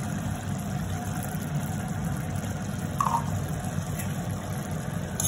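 Steady low rumble of a gas stove under a pan of thick tomato and jaggery chutney simmering.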